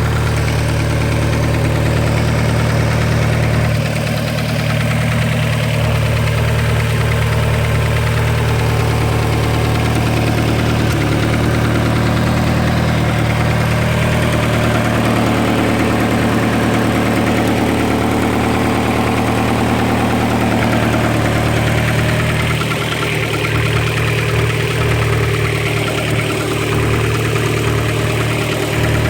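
Car engine idling steadily with a fast, even ticking on top, which the owner holds is not lifter tick.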